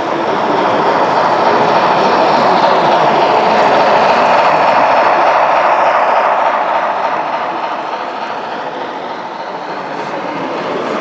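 Model train running along layout track, a steady rolling clatter that grows louder, holds, then fades about two-thirds of the way through as the train passes.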